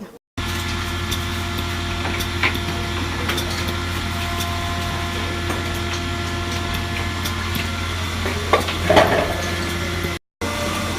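Steady mechanical hum of running machinery, holding several fixed tones, with scattered light clicks and knocks. It cuts in abruptly and drops out briefly near the end.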